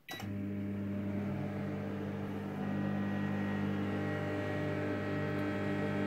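Sharp R959SLMAA 900 W combination microwave oven running on its one-minute auto start: a steady, even hum, quite quiet and smooth.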